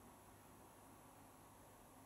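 Near silence: a faint steady hum and hiss while the washing machine's drum stands still in a pause of the rinse.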